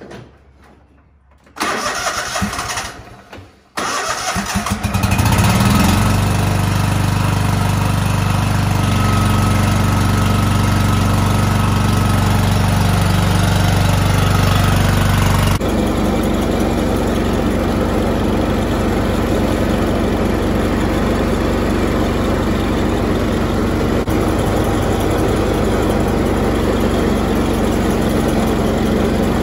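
Craftsman GT3000 lawn tractor's 24 hp Kohler V-twin engine cranked by its electric starter, which stops briefly and tries again, catching about four seconds in and settling into a steady run on fresh spark plugs. About halfway through the sound changes abruptly to the engine running steadily as the tractor mows tall grass.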